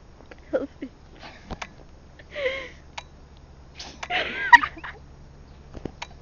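A person's short breathy vocal sounds: gasps and squeaky bursts that rise and fall in pitch, the loudest about four and a half seconds in, with a few sharp clicks between them.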